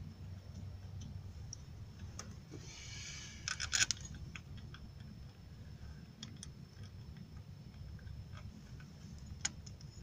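Light metallic clicks and rattles as the balancer chain and its tensioner on a Nissan 2.5-litre engine are handled and fitted by hand, with a brief scrape and a cluster of sharper clinks about three and a half seconds in and a single click near the end, over a steady low rumble.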